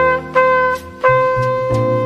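Instrumental jazz ballad: a horn holds long, sustained notes over a bass line, changing note about a second in.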